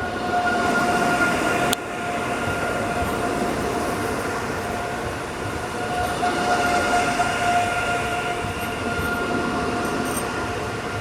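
Regional passenger train rolling into a station, a steady rumble of wheels on rail with a steady high whine running through it. A sharp click about two seconds in, after which the sound is a little quieter.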